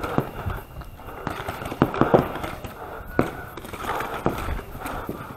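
Paintball markers firing during a point: scattered single sharp pops and knocks at irregular intervals, strongest around two seconds in and just after three seconds, with no sustained stream of shots.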